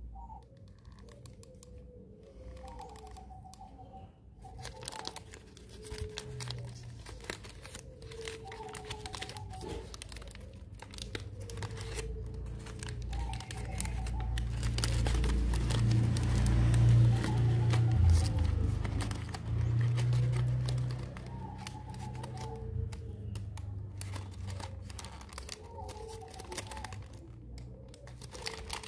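Pleated paper cupcake liners crinkling and rustling as hands spread and fluff their folds. A low rumble swells through the middle and fades again.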